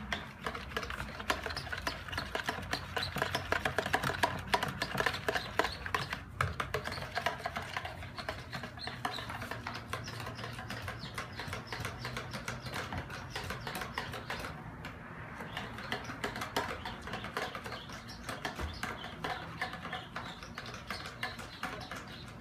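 A spoon stirring a thick sour cream and kefir mixture in a plastic mixing bowl: quick, continuous scraping and clicking against the bowl.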